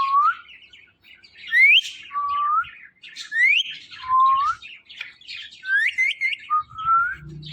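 Green ringneck parrot whistling a repeated call: a short rising whistle followed by a higher, steeper upswept note, over and over about once a second, with scratchy chatter between the whistles.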